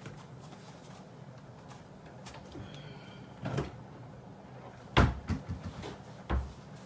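Kitchen wall cabinet door opened and closed, with a sharp knock about five seconds in, a few small clatters after it, and another knock just after six seconds.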